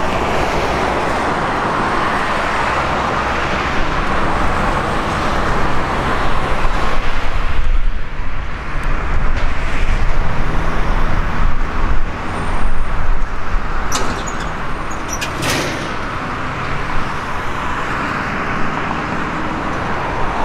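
Road traffic passing, with a louder stretch in the middle as vehicles go by.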